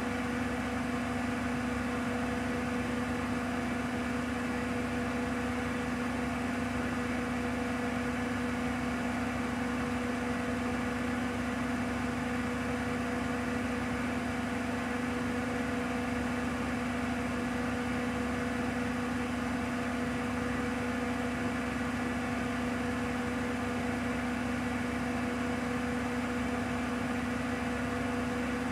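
Bosch WAQ28470GB washing machine spinning its empty drum at a steady 1400 rpm: a steady whine with a higher tone above it, over an even rushing noise.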